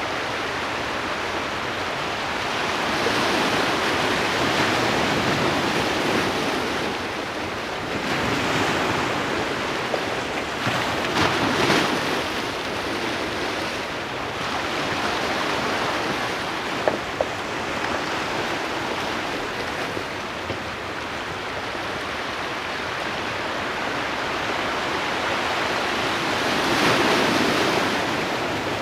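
Sea and wind noise: a steady rushing haze of surf with wind on the microphone, swelling and easing several times. A few short knocks stand out near the middle.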